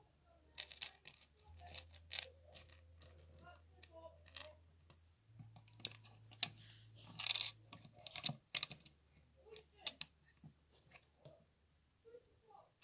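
Small plastic LEGO bricks clicking and tapping as pieces are handled and pressed onto the model, in scattered single clicks with a louder clatter about seven seconds in.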